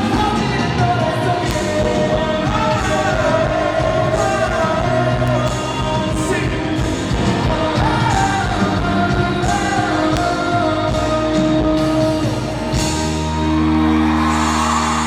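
Live pop-rock band playing the closing bars of a song, with a wordless sung line over the band, settling into a held chord about 13 seconds in.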